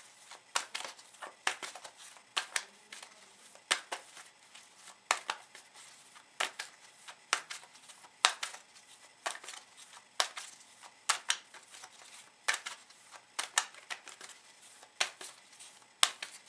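A deck of tarot cards being shuffled by hand: a run of short, crisp card snaps and slaps, roughly one or two a second.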